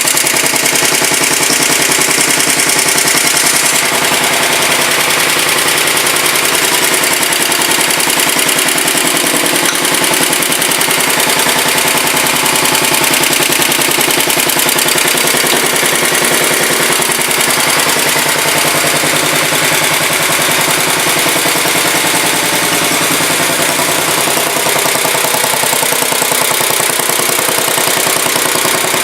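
1967 Sears Suburban 10 garden tractor engine running steadily on its first run after repairs, with a fast, even firing beat.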